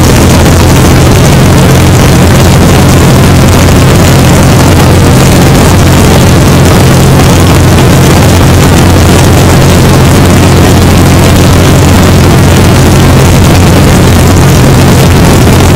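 Great Lakes biplane's piston engine and propeller droning steadily in cruise flight, with a constant rush of airflow, loud and unchanging.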